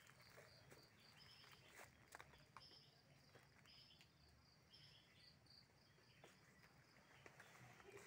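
Very faint outdoor ambience: runs of short, high chirps from small wildlife, with scattered soft crackles of footsteps on dry banana leaves.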